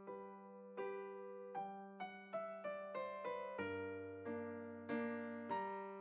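Quiet background piano music: single notes struck one after another and left to ring out over held lower notes.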